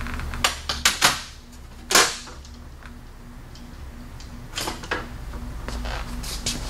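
Sharp metallic clicks and clanks of hand tools being handled, with the loudest clank about two seconds in and a few more clicks near the end, over a steady low hum.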